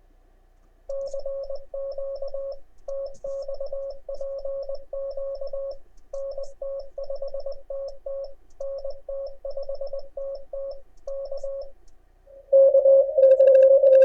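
Morse code (CW) heard through an amateur radio receiver: a single mid-pitched tone keyed in dots and dashes, sending steadily for about ten seconds. Near the end a much louder keyed tone of the same pitch, with a buzzier edge, takes over.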